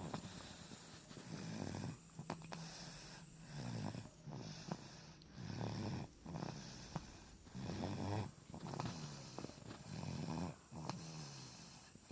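Sleeping baby snoring, with a low, pitched snore on each breath at about one a second.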